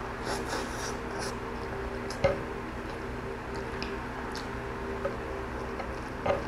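Close-up chewing and wet mouth clicks of a person eating by hand, over a steady background hum; a sharp click comes about two seconds in and another near the end.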